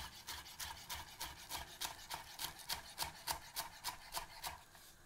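Chef's knife chopping fresh parsley on a wooden chopping board: quick, even knocks of the blade on the board, about four a second, stopping near the end.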